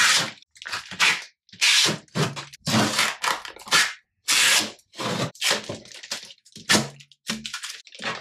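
Protective plastic film and packing tape being peeled and pulled off a new 3D printer's enclosure by hand: crackling, ripping plastic in quick, irregular bursts.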